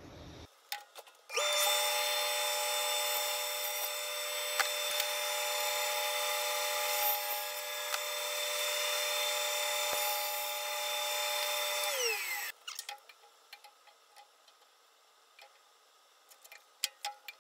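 Bandsaw started and running steadily with a whine and hiss while it cuts a firewood log. About twelve seconds in it is switched off, its pitch falling as the blade coasts to a stop, followed by a few light handling clicks.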